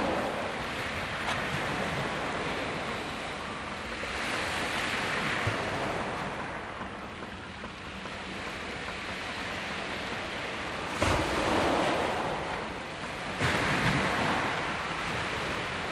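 Sea waves washing onto a beach: a steady surf hiss that swells about four seconds in, with a sudden louder crash about eleven seconds in and another about two seconds later.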